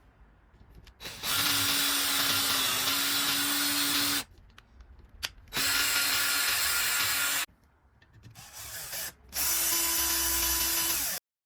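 A high-speed power tool motor running at a steady pitch in three bursts of a few seconds each, starting and stopping abruptly. The pitch is slightly higher in the last burst.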